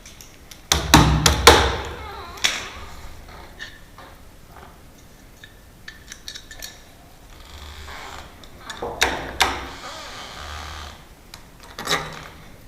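Metal hand tools knocking and clattering against the lock and door while a mortice lock is fitted: a loud cluster of sharp knocks about a second in, another group around nine seconds, and a single knock near the end.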